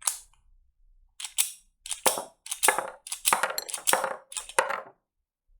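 Sharp metallic clicks and clacks from a miniature alloy toy Glock pistol being worked by hand: one click at the start, then about six quick bursts of clacking over the next few seconds.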